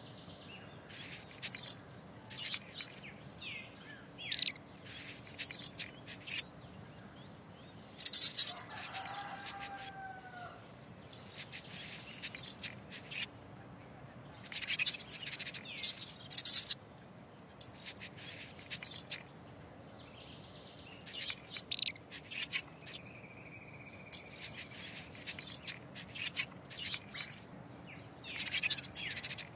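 Clusters of short, high-pitched chirps and squeaks from small animals every second or two over a faint steady background, with a couple of brief whistled glides, one about nine seconds in.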